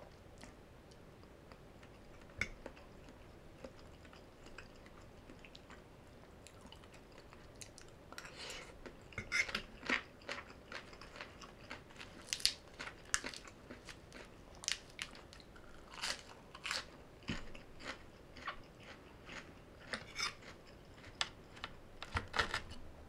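Close-miked eating: a person biting and chewing crunchy green papaya salad and lettuce. The crunching is sparse at first and becomes steady and frequent from about eight seconds in.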